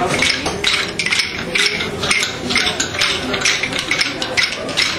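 Wooden rhythm sticks struck together by a group, a rapid, uneven clatter of sharp clacks several times a second.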